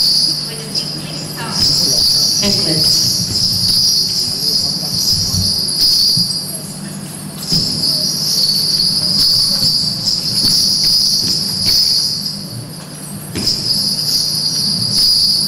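Small bells jingling rapidly in rhythm with dance steps, in phrases of about three seconds with short breaks between them, over a low steady hum.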